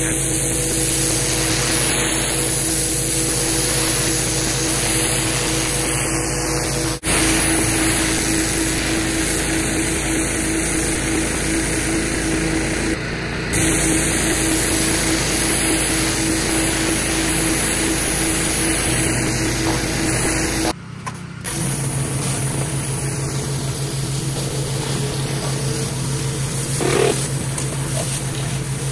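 Pressure washer running steadily: a constant machine drone under the hiss of the high-pressure water jet striking concrete, with a few abrupt jumps in the sound at edit cuts.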